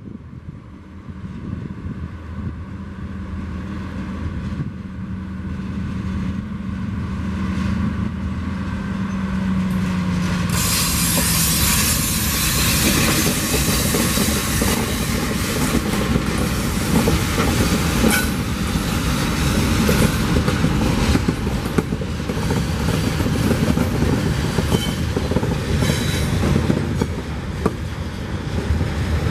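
TasRail diesel-electric freight locomotives approach with a steady engine note that climbs slightly, then pass close by with a loud rush of engine and wheel noise about ten seconds in. Coal hopper wagons follow, rolling past with scattered clicks of wheels over the rail joints.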